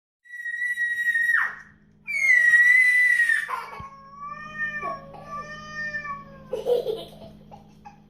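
Cat yowling in long, high-pitched drawn-out cries; the longest drops in pitch partway through and is held for several seconds. A faint steady hum runs underneath.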